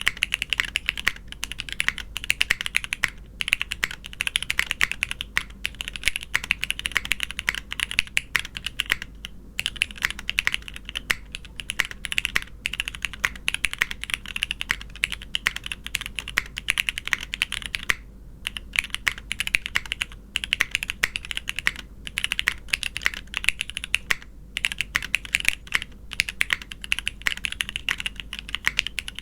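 Continuous fast typing on a custom top-mount mechanical keyboard with broken-in Cherry MX Black linear switches, an ABS plate and GMK keycaps: a dense, steady clatter of keystrokes with a few brief pauses.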